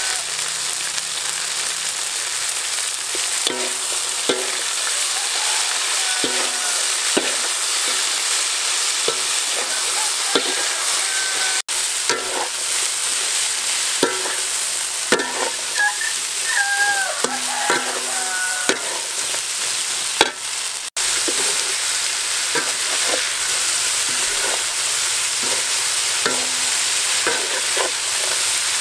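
Grasshoppers sizzling as they fry in a steel wok, with a metal ladle scraping and clinking against the pan as they are stirred, giving short high squeaks of metal on metal here and there. The sound cuts out for an instant twice, near 12 s and 21 s.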